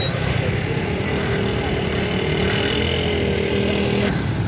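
Road traffic noise, with a motor vehicle engine running close by as a steady hum that stops sharply about four seconds in.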